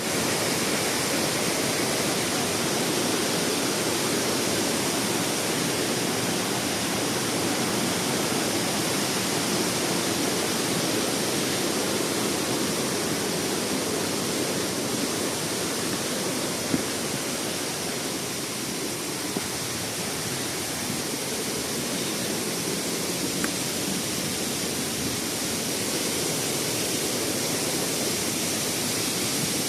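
Waterfall: a steady rush of falling water, with a couple of small clicks in the second half.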